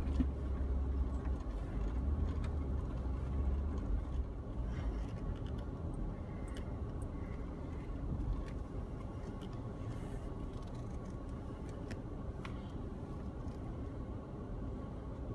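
4x4 vehicle driving over a rough frozen trail: a steady engine and tyre rumble, heaviest for the first few seconds, with scattered light clicks and knocks.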